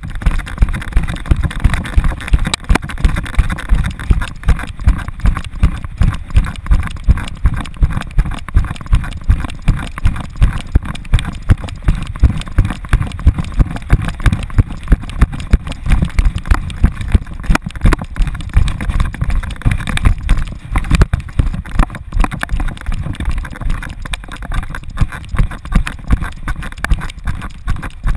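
Rhythmic thuds from a running American Staffordshire terrier's stride jolting a GoPro strapped to its back, about two to three a second, over a steady rush of noise as the dog runs along a dirt trail.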